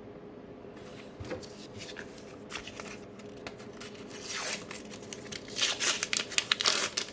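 A foil sticker packet being torn open and its wrapper crinkled: irregular rustling and crackling that builds up and gets louder in the second half.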